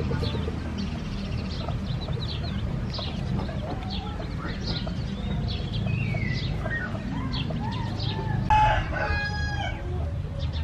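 A rooster crows once near the end, a pitched call of about a second and a half and the loudest sound, over chickens clucking and a steady run of short high chirps.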